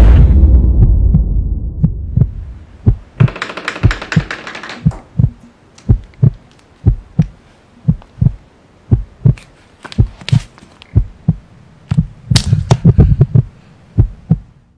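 Heartbeat sound effect: a deep boom dies away into steady low thuds in a heartbeat rhythm. Two short bursts of brighter, higher noise come a few seconds in and again near the end.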